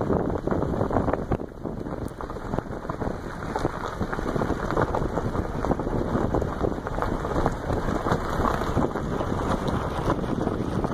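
Wind buffeting the camera's microphone: a continuous rumbling, crackling rush with no pitch to it.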